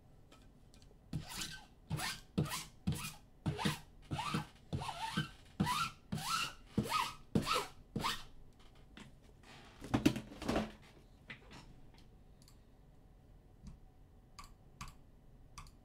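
A run of quick rasping strokes, about two a second for several seconds, then one louder thump, and a few light clicks near the end.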